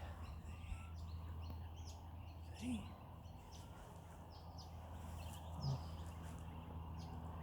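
Swift parrots giving short, high chirping calls, scattered irregularly, over a steady low hum, with a couple of brief soft knocks.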